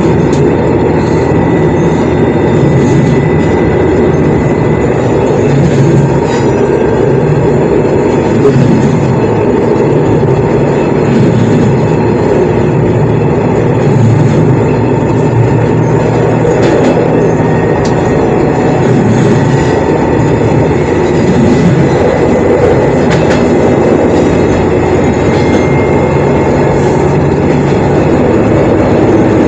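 Shigaraki Kohgen Railway SKR401 diesel railcar running along the line, heard from inside the car. A steady, loud running noise of the engine and of the wheels on the rails, with scattered short clicks.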